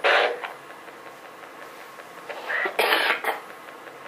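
A person coughing: a short cough right at the start and a longer one about three seconds in, over steady hiss.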